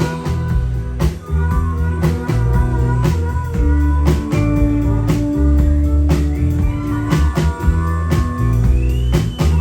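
Live rock band playing an instrumental passage: a drum kit keeping a steady beat under bass and guitar lines, with no singing.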